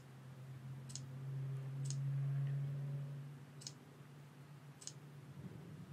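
Computer mouse clicking five times, spaced roughly a second apart, over a low steady hum that swells and fades in the middle.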